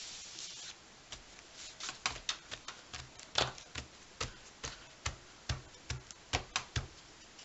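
Hands patting and pressing a folded-over journal page flat onto wet watercolour to transfer the paint: a brief rub of paper, then about fifteen quick, irregular pats over some six seconds.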